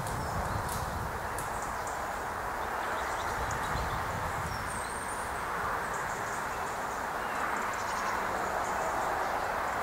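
Woodland ambience: a steady rush with a low rumble of wind on the microphone and a few faint, high bird chirps.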